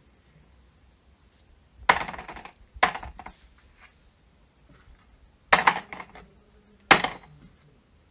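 Small metal parts clinking and clattering down onto a hard surface in four short bursts, two near the start and two more a few seconds later.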